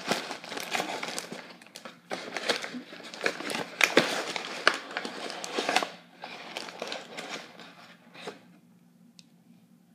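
Bag of flour crinkling and rustling as flour is scooped out into a quarter-cup measure, with small clicks and knocks, for about six seconds before it dies away.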